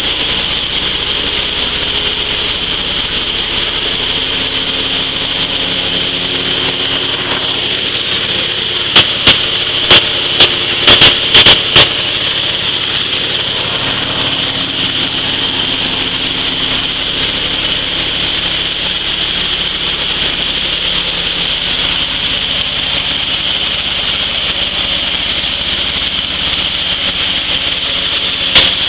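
Steel dry-coffee huller running: a steady mechanical hum with a strong hiss. A quick cluster of sharp, loud clicks comes about nine to twelve seconds in, and again at the very end.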